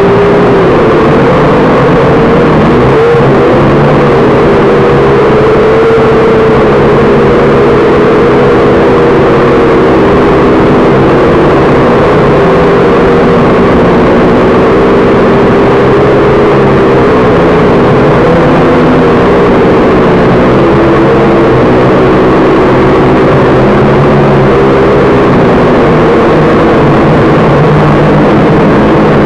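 Ares Ethos QX130 quadcopter in flight: its small motors and propellers whine steadily, the pitch wavering up and down as the throttle changes.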